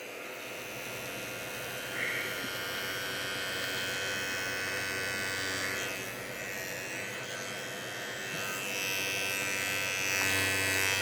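Manscaped Lawnmower 3.0 battery body trimmer running with a steady electric buzz as it shaves leg hair, its level dipping and rising a little as it is moved over the skin.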